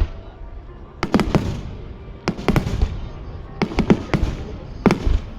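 Starmine fireworks barrage: aerial shells bursting in quick clusters of sharp bangs, a group roughly every second or so, over a low rumble.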